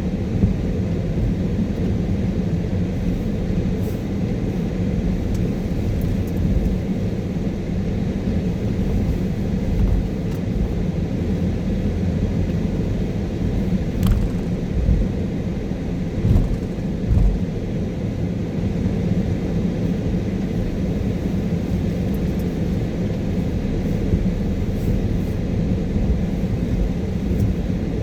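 Steady low rumble of a car being driven, its engine and tyre noise heard from inside the cabin, with a few brief low thumps.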